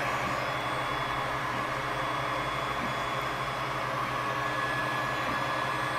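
Geeetech A10 3D printer running a print: a steady whir from its cooling fans, with a few faint steady whining tones from the machine's motion.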